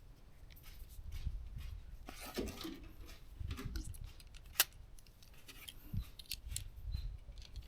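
Handling of an airsoft gun and its rail-mounted NGAL unit: rustling and scattered small clicks, with one sharp click about four and a half seconds in.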